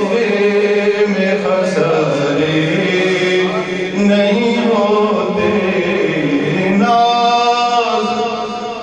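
A man reciting the Quran in the melodic, chanted tajweed style, drawing out long ornamented phrases. He takes a short breath about four seconds in and again near the end.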